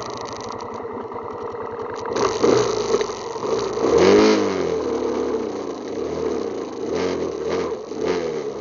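ATV engine running with a steady beat, then revved up and back down about four seconds in, with a few smaller revs after.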